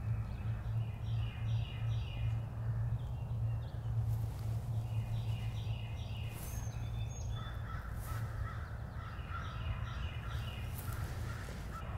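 Crows cawing in several short runs of harsh, evenly spaced calls, over a steady low hum.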